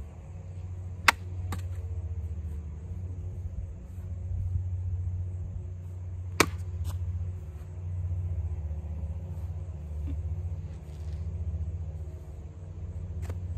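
Hanwei Practical Plus XL katana cutting through rolled tatami mat: two cuts about five seconds apart, each a single sharp crack followed by a lighter knock, with a fainter click near the end, over a steady low rumble.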